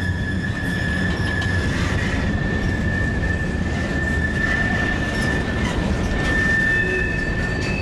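Long CN freight train rolling past with a steady rumble from the cars, its wheel flanges squealing in one steady high tone on the curve.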